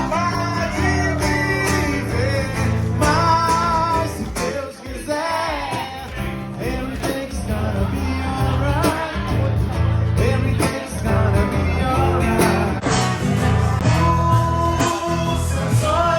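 Live music: a man singing over guitar, with a steady bass line underneath.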